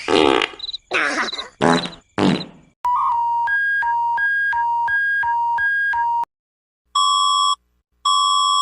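Synthesized fake emergency-alert (EAS) alarm: four short distorted noise bursts, then a harsh electronic beep alternating between a low and a high pitch several times a second for about three seconds. After a short gap come two longer buzzy beeps at one pitch near the end.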